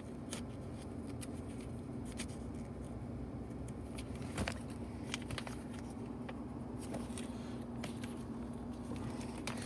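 Faint handling sounds of a paper service logbook, a few soft clicks and rustles with one sharper tap about four and a half seconds in, over a steady low hum.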